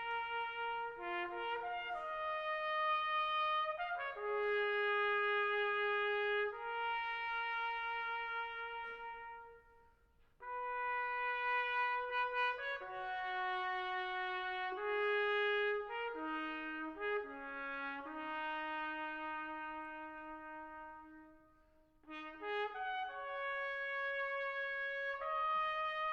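Brass music led by a trumpet playing a melody of held notes, in three phrases separated by two brief silences.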